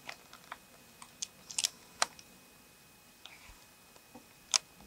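Scattered sharp crackles of dry fallen leaves as wild turkeys walk and scratch through the leaf litter, irregular and unrhythmic, with the loudest crackle about four and a half seconds in.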